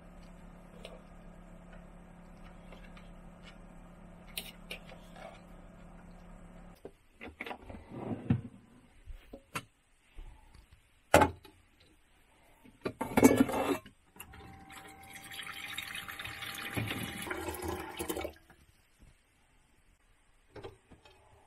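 Knocks and clatter of a stainless steel pot being handled in a small metal sink, then a faucet running into the pot for about three seconds before it is shut off. Before this, a low steady hum.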